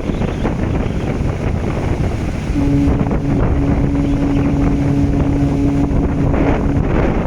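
Strong wind buffeting the microphone. About two and a half seconds in, a ship's horn sounds one long, steady, low blast of about four seconds.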